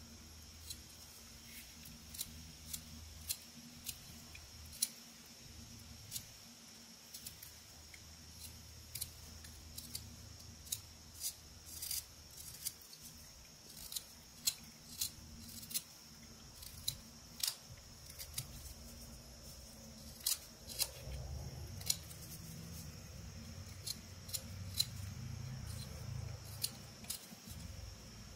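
Whittling knife slicing small chips from an Eastern white pine carving: a string of short, crisp cuts at irregular spacing, about one or two a second, over a faint steady high hiss.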